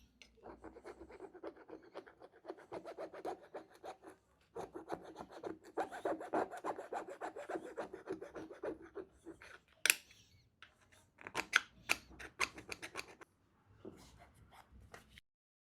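Rapid, continuous scraping and rasping of a hand tool against the scooter hub motor's rotor as a cracked magnet is worked loose. It is followed by a few sharp clicks and knocks near the end.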